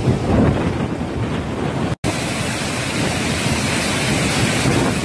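Wind rushing over a phone's microphone, a steady noisy roar that cuts out for an instant about two seconds in and comes back with more hiss.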